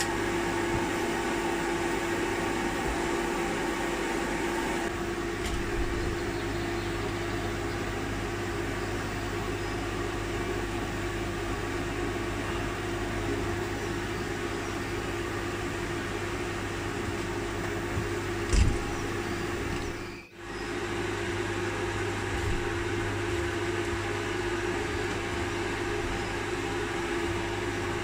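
Steady mechanical hum, a constant drone like a fan running, with a faint hiss that eases off about five seconds in. A single sharp clunk comes about two-thirds of the way through, and the sound dips out for an instant just after.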